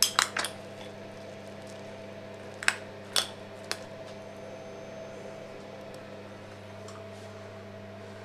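Metal teaspoon clinking and scraping against a ceramic mug of scrambled egg: a quick run of clicks at the start, then three single clinks about three seconds in. A steady low hum runs underneath.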